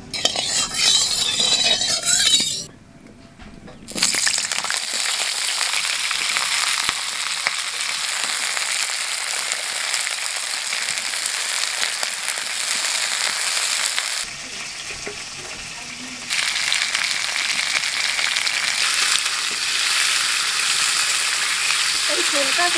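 Cauliflower florets frying in hot mustard oil in a kadai: a steady sizzle, briefly quieter for a couple of seconds midway.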